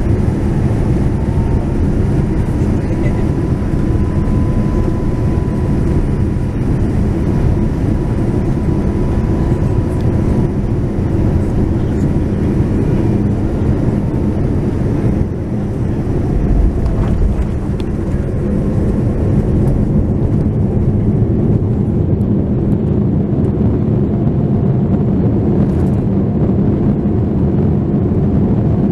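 Cabin noise of a Boeing 787-9 on landing: the steady rumble of its Rolls-Royce Trent 1000 engines and airflow, with a faint whine in the first few seconds. About halfway through comes a low thump as the wheels touch down, then the steady rumble of the landing roll.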